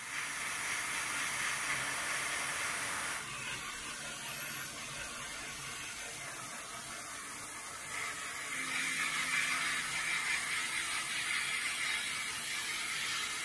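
Airbrush spraying thinned paint, a steady hiss of air. The hiss thins about three seconds in and grows fuller again from about eight seconds.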